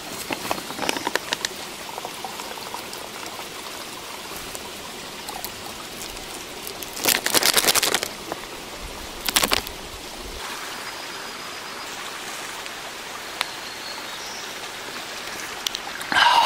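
A steady hiss of water, with two short, louder rushing bursts about seven and nine and a half seconds in.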